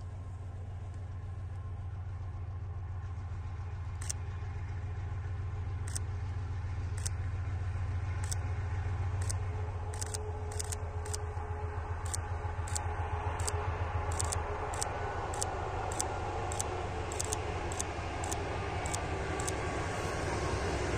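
GE C36-7i diesel-electric locomotive approaching: a low, steady engine drone growing louder, with sharp clicks from about four seconds in that come more and more often as it nears.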